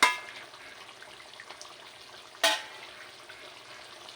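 Metal cooking pot clanking twice, about two and a half seconds apart, each strike ringing briefly, as it is taken off the stove, with a low steady hiss between.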